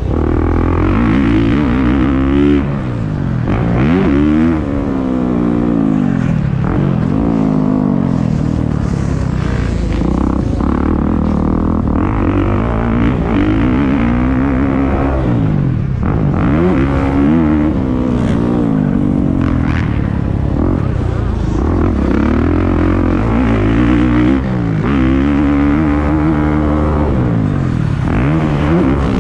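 Motocross dirt bike engine revving hard and easing off over and over, its pitch climbing and falling every few seconds through corners, jumps and straights.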